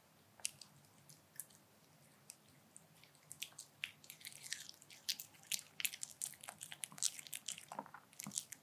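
A Pomeranian chewing a bite of dog-safe black-bean-sauce food, heard close up. A few single clicks come first, then from about three seconds in the chewing turns into a fast, dense run of clicks.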